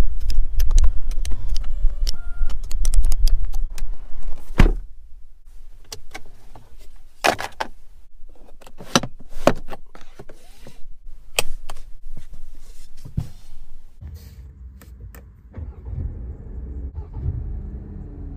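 Hongqi H6's electric seat-adjustment motor running for about four and a half seconds, with clicks mixed in. It is followed by a string of separate sharp clicks and knocks, and a low hum comes back near the end.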